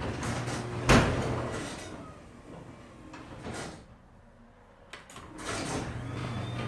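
Garage door running with a steady low hum, a loud thump about a second in, then quieter, with a few clicks around five seconds before the hum picks up again.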